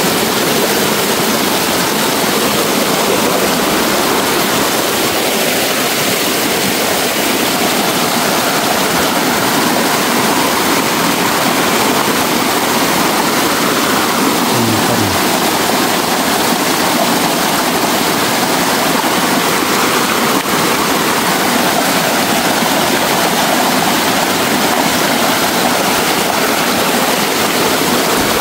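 A small, fast forest stream cascading over rocks in a steady, loud rush of water.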